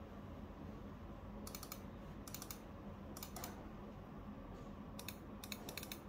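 Sharp plastic clicking in five quick groups of two to four clicks each, with a steady low hum underneath.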